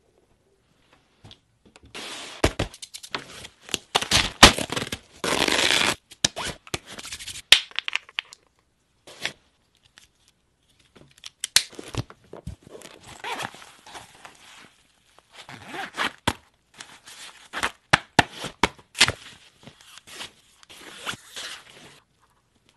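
Camera gear being handled and packed into a padded camera backpack: bursts of fabric rustling and tearing, scrapes, and sharp clicks and knocks, in two busy stretches with a sparser lull in the middle.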